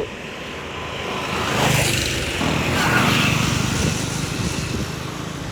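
A motor vehicle passing on the road, engine and tyre noise swelling about a second and a half in and easing off after about four seconds.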